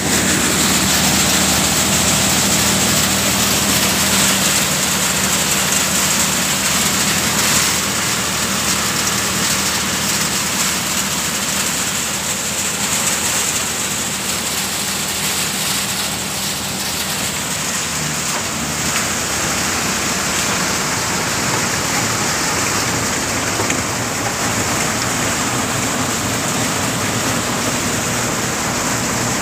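Vijay Khurai multi-crop thresher running steadily, driven by a tractor: a steady loud rushing hiss over a constant low hum, unchanging throughout.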